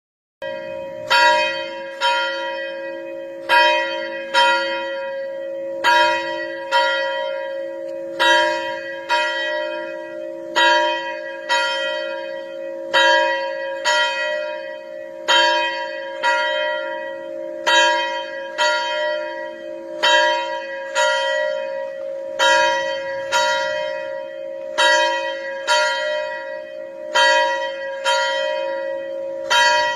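A single church bell ringing steadily, starting about half a second in. It is struck about once every 1.2 seconds, and each stroke's tone carries on under the next.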